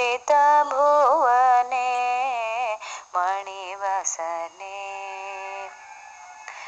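A solo voice sings a devotional song to Goddess Chamundeshwari, with wavering, ornamented pitch and long held notes. It drops to a softer stretch near the end.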